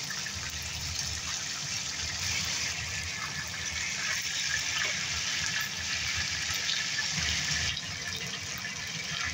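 Chicken pieces frying in oil in a pan over a medium-high flame: a steady sizzle with small crackles, easing slightly near the end.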